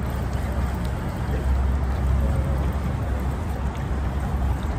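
Steady low rumble of wind on the microphone over open water, with water lapping at a boat's hull.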